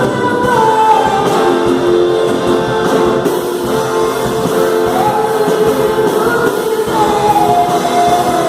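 Music: a song with singing over guitar accompaniment, the voice holding long notes and sliding between pitches.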